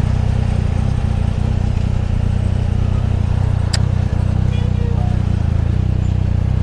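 Yamaha MT-09's inline three-cylinder engine running at steady low revs, with no revving. A single sharp click about a third of the way through.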